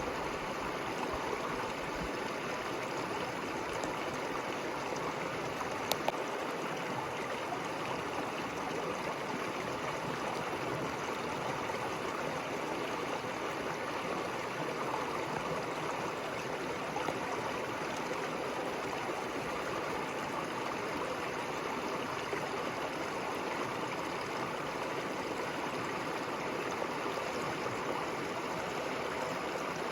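River water flowing, a steady rushing sound without a break.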